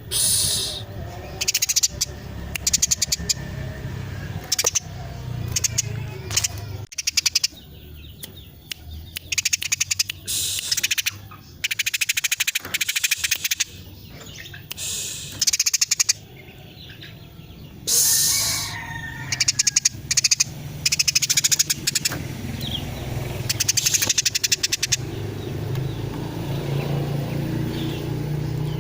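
Female Eurasian tree sparrow chattering in rapid, dense bursts: fast trains of short, harsh clicking notes, repeated every second or two, over a low steady hum.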